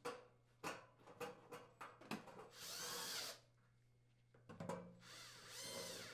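Cordless drill-driver driving sheet-metal screws into an oven's metal access panel. It makes two short runs whose pitch rises and falls, one about two and a half seconds in and one near the end, each with clicks and rattles of handling before it.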